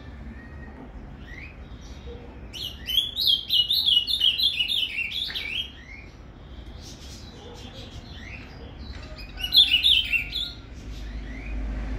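Ultramarine grosbeak (azulão) singing its Paraná-type song: a fast run of quick, high warbled notes lasting about three seconds, then a second, shorter phrase about a second long near the end, with faint calls between.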